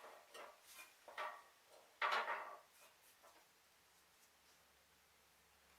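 A few light knocks and clinks of metal parts being handled and set down, the loudest about two seconds in.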